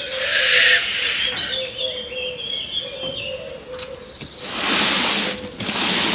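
Cardboard box scraping and rustling as it is slid and handled on a table, in two stretches: during the first second, and again from about four and a half seconds to the end. Birds chirp in the background.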